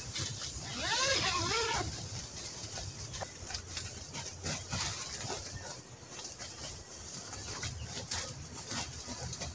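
A dog whines once, a drawn-out cry of about a second that bends up and down in pitch, about a second in, among scattered light rustles and clicks.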